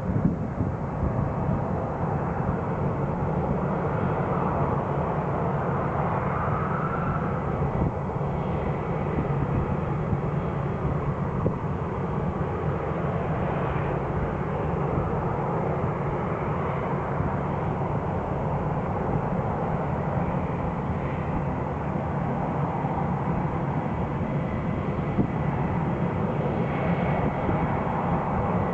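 Airliner engines running steadily, a sustained noise with a faint high whine on top.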